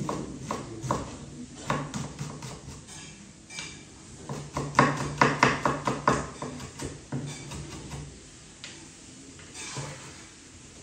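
Kitchen knife finely chopping an onion on a wooden chopping board: quick runs of sharp knocks of the blade against the board, thinning out toward the end.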